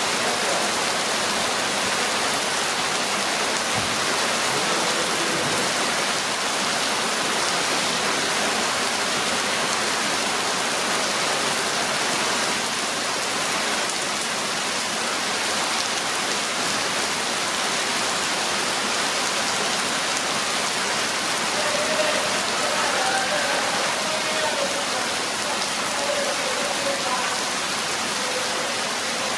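Steady rain falling on a concrete street, drops striking the wet pavement in an even, unbroken hiss.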